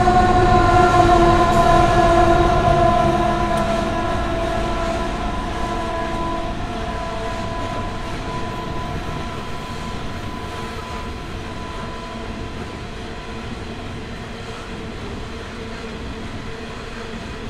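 Coal train passing: the diesel locomotive's multi-note horn sounds loudly at the start, its tones dipping slightly in pitch and fading over the first several seconds. Under and after it, the locomotive and a long line of coal hopper wagons roll by with a steady rumble that slowly grows quieter.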